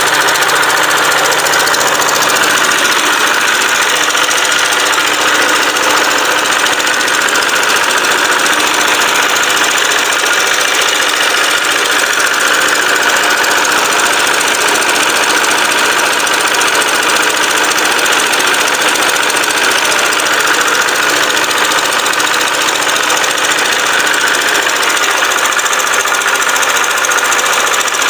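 Kubota ER75 single-cylinder diesel engine running steadily under a light load, turning a concrete mixer through a belt and pulley. It is being run up to warm after standing unused.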